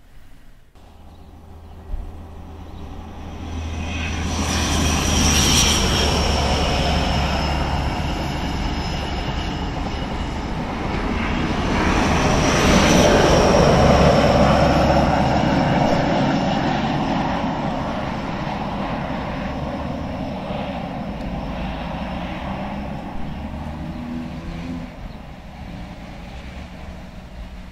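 An HST (InterCity 125) passing at speed: the Class 43 power cars' diesel engines running under power with a high turbocharger whistle that falls in pitch as they go by, over the rumble of wheels on the rails. It swells twice and then slowly fades away.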